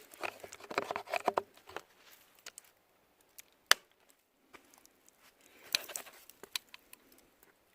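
Crinkling, rustling handling noise as an inner tube in its wrapper is packed into a bike frame's SWAT storage compartment, with one sharp click a little before halfway and a few smaller clicks and rustles later.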